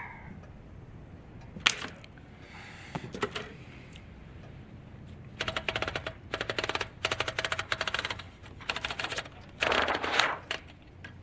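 Old manual typewriter being pecked at: a few scattered keystrokes, then quick runs of key clacks about halfway through. Near the end comes a short rasping burst as the typed sheet is pulled out of the roller.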